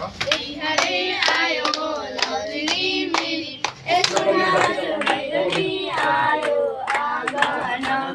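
A group of girls singing a Bhailo song together and clapping their hands in time.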